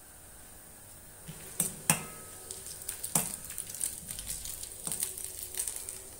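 Whole spices sizzling in hot sesame oil in a metal kadai. From about a second and a half in, a perforated steel ladle knocks and scrapes against the pan as the spices are stirred, with a few sharper clacks among them.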